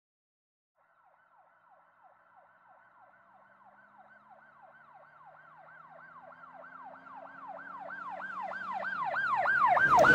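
An emergency vehicle siren in a fast yelp, its pitch sweeping up and down about three to four times a second and growing steadily from faint to loud.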